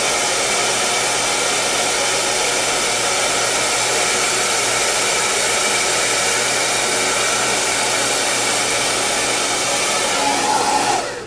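Handheld hair dryer blowing at the roots of hair rolled on a round brush: a steady rush of air with a faint motor whine, switched off near the end.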